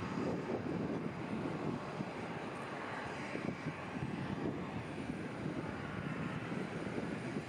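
Airliner engines running, a steady noise with no clear whine.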